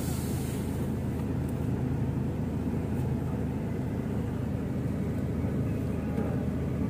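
Steady low rumble of a car's engine and road noise, heard from inside the cabin of the moving car.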